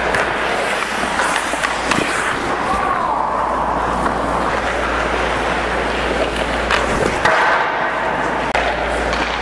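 Hockey goalie's skate blades scraping and carving the ice as he moves in the crease, a steady hiss with a couple of sharp knocks.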